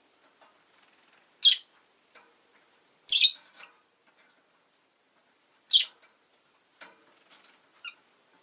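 Rosy-faced lovebird giving short, shrill chirps: three loud ones a couple of seconds apart, with faint clicks and ticks in between.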